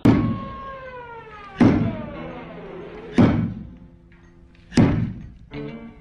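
Dramatic music track: four heavy hits about a second and a half apart, each followed by a falling, ringing tone.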